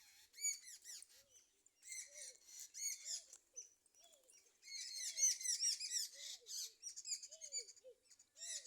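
Sparrows chirping: many short, high chirps overlapping in bursts, busiest and loudest about halfway through, with a fainter lower call repeating underneath.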